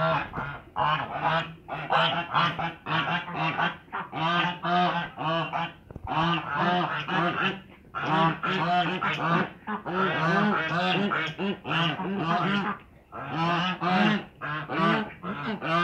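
Domestic grey geese honking over and over in loud, rapid bouts, with brief pauses in between.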